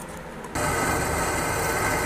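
Drill press running, its bit cutting into a small steel plate, coming in abruptly about half a second in as a steady mechanical drone; before that, only faint room tone.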